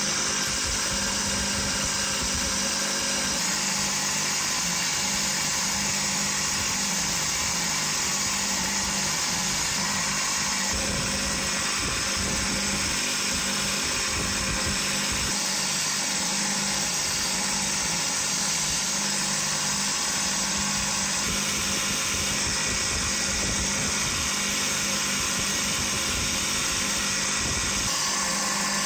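Bench grinder motor running steadily with a wire wheel spinning, a small brass part held against it and scrubbed by the bristles: a steady hum under an even hiss.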